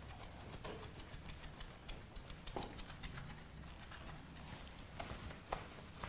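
Cloth held in a rubber-gloved hand wiping a tiled wall, giving faint, irregular rubbing sounds and small taps.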